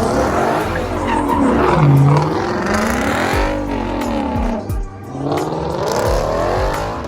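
Car tyres squealing in long squeals that keep rising and falling in pitch as the wheels spin, with engines running underneath.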